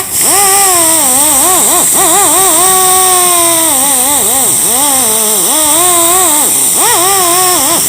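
A loud, high-pitched engine revving up and down in quick repeated blips, with one longer held rev about a third of the way in, over a steady hiss. It starts abruptly.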